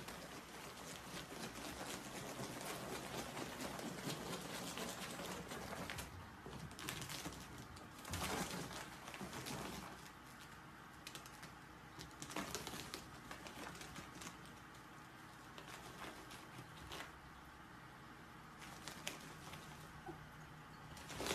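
Ferrets scrabbling through a ribbed clear plastic hose: a dense, irregular patter of claw clicks and scrapes on the plastic, with louder knocks about eight and twelve seconds in.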